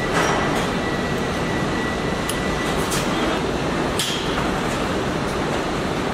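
Car-body assembly line machinery running as a steady loud din, with several sharp metallic clicks and knocks. A faint high steady tone stops about two and a half seconds in.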